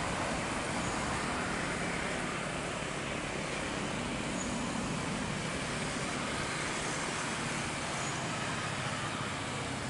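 Jet engines of a Lion Air Boeing 737 at takeoff thrust as it climbs away: a steady, even rushing noise that fades a little near the end.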